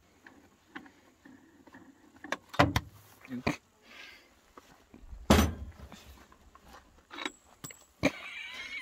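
Scattered knocks and clunks of a brush cutter's trimmer head and tools being handled on a work truck's metal tray. The loudest knock comes about five seconds in.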